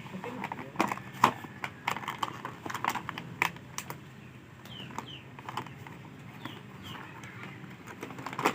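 Irregular clicks and taps of a boxed toy construction truck set being handled and pried open, the clicks thickest in the first few seconds.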